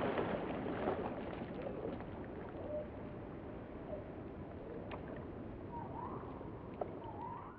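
A large animal splashing as it breaks the surface of calm water, then the water sloshing and lapping as the splash dies down.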